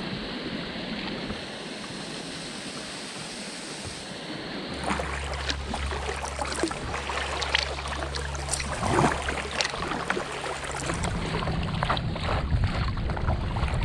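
Water rushing steadily over a small weir, then kayak paddle strokes with splashes and drips off the blades over a low steady hum, and from about eleven seconds in, wind buffeting the microphone over choppy water.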